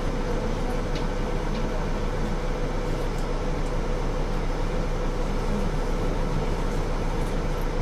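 Mercedes-Benz Citaro C2 single-decker city bus running steadily: an even hiss and hum with a constant mid-pitched tone and no change in speed or load.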